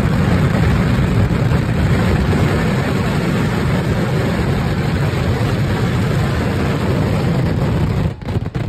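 Massed firecrackers of a large ground-level fireworks display exploding so densely that the bangs merge into one continuous, heavy rumble. It breaks off abruptly near the end.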